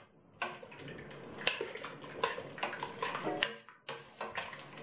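Sausage slices dropped by hand and slid off a cutting board into a stainless steel pot of liquid goulash: soft splashes with several sharp knocks against the pot.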